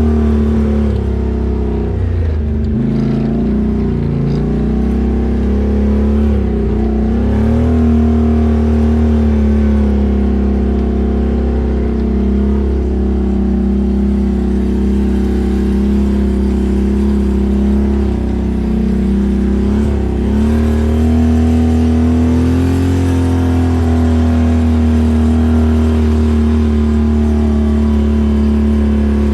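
ATV engine running steadily, its speed dipping briefly and picking up again several times.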